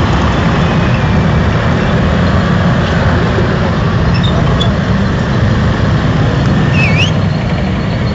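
Tracked armoured vehicles, M113-type personnel carriers and a tank, driving past on dirt: a loud, steady heavy engine drone with track rumble. A short high squeal about seven seconds in.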